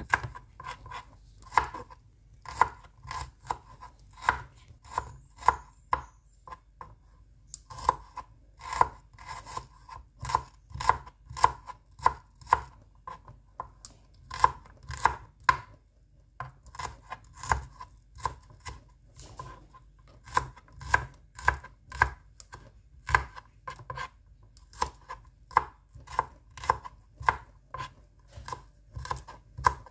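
A knife slicing shallots on a cutting board: a steady run of sharp taps, about two a second, as the blade meets the board, with short pauses about six seconds in and again about halfway.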